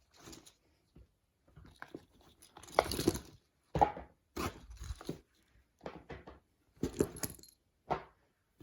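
Plastic fidget toys being handled and rummaged through in a box: irregular bursts of rustling, crinkling and clattering, about ten handling noises with short gaps between them.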